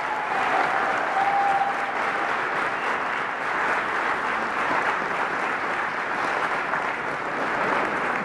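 Audience applauding: a steady stretch of clapping from a seated crowd.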